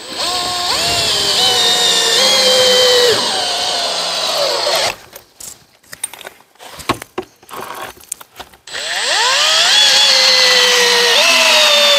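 Cordless drill with a long bit running in two bursts of several seconds each. Its motor pitch sweeps up at each start, then holds and sags as it bites, drilling into the wooden post through the concrete repair spur for the fixing screws. A few light knocks and clicks of handling come between the two bursts.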